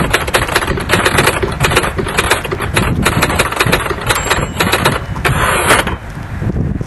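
Typewriter keystroke sound effect: rapid, irregular clacking of keys for nearly six seconds, ending in a denser rattle, over low wind rumble on the microphone.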